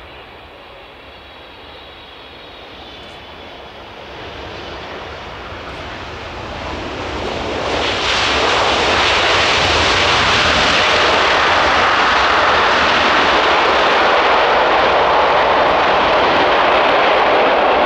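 Boeing 777 freighter's GE90 jet engines on landing rollout: the engine noise builds after touchdown, then about eight seconds in it rises sharply to loud, steady reverse thrust that holds as the aircraft decelerates.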